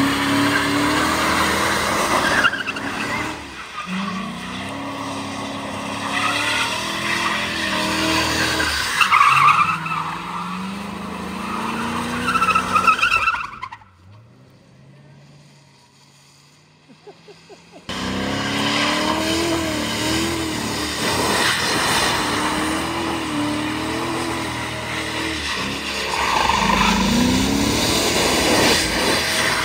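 A 2001 Mercury sedan with a locked differential doing burnouts: the engine is revved hard and held high, at times against the rev limiter, while the rear tyres spin and squeal on the pavement. About halfway through, the sound drops away for a few seconds, then the revving and tyre squeal come back loud.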